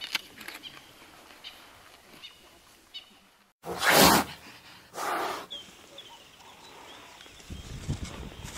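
Two loud whooshes about a second apart at a title-card transition, after a short drop to dead silence. Faint outdoor ambience with a few short high chirps lies around them, and a low rumble builds near the end.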